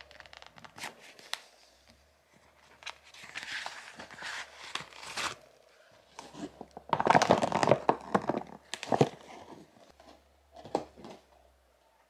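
Clear plastic zip-top bag crinkling and rustling in irregular bursts as hands open it and take out a folded solar lantern, loudest about seven seconds in.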